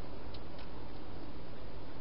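A wild hedgehog eating at dishes inside a plastic feeding box: two faint clicks of chewing and jostling at the food, over a steady hiss.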